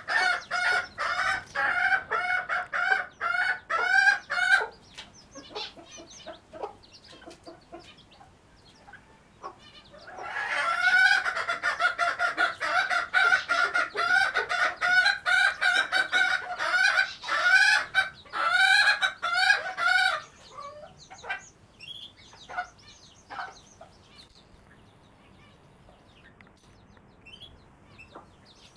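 Chickens calling in rapid runs of repeated calls, several a second. One run is at the start; after a lull, a second run comes in about ten seconds in and stops around twenty seconds. Fainter, scattered higher calls follow.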